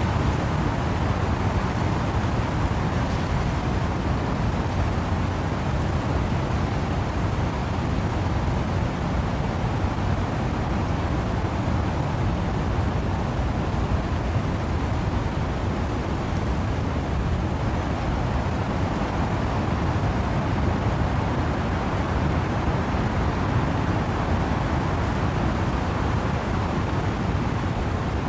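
Wind-driven rain through trees as a steady, unbroken rushing noise, heaviest in the low end, with no separate drops or gusts standing out.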